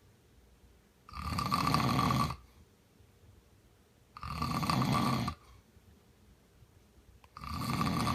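A man snoring in his sleep: three snores, each just over a second long and about three seconds apart, the third starting near the end.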